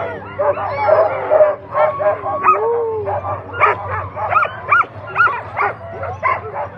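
A team of harnessed Alaskan husky sled dogs barking and yipping together, many short high calls overlapping, the eager racket of a team waiting to be let go at the start line.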